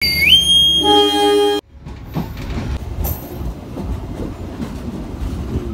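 A station officer's departure whistle, rising in pitch and then held, joined a little under a second in by a train horn sounding in answer; both cut off abruptly after about a second and a half. Then a train running along the track, a steady low rumble with clicks from the wheels.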